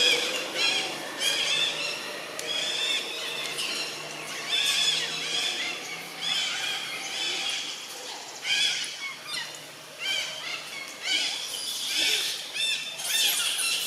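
Repeated high-pitched animal calls, in quick runs of short arching chirps, with a faint low hum underneath at times.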